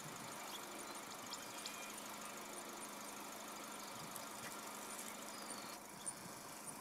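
A vehicle engine idling faintly under a steady hiss, with a few short high chirps scattered through.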